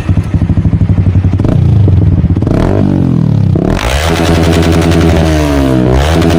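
Yamaha R15 V2's single-cylinder engine revved through its exhaust: a loud pulsing at first, then the revs rise and fall a few times. About four seconds in it holds at a steady higher speed, dipping and climbing again near the end.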